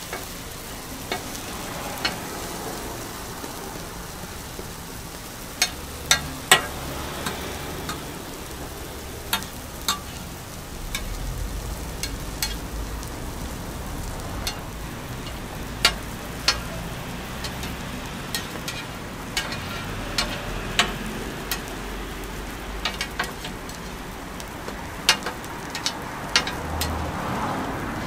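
Egg-and-vegetable patties and slices of bread sizzling steadily on a flat-top griddle, with a metal slotted spatula clicking and scraping sharply against the griddle plate many times as the food is turned and pressed.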